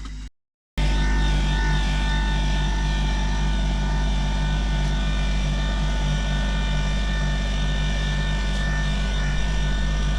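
Kubota compact tractor's diesel engine running steadily as it pulls a plow through a potato row. The drone comes in abruptly after a half-second gap near the start.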